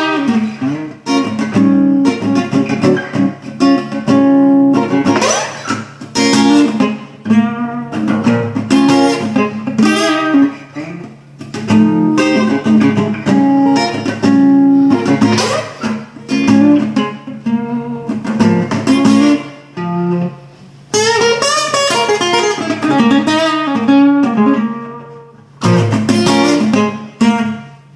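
Acoustic guitar played solo, chords struck and left ringing in phrases with short breaks between them; the last chord dies away at the end.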